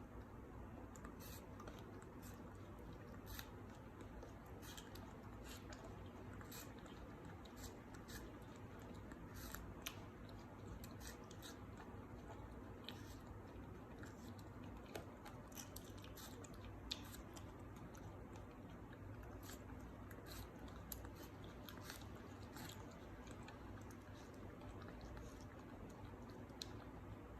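Monkey chewing and biting food, a faint run of small irregular crunchy clicks over a low steady hum.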